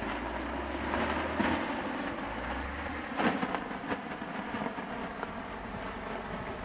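Wind buffeting the microphone: a steady rushing noise with a low rumble in the first half and a few sharp knocks, about one and a half and three seconds in.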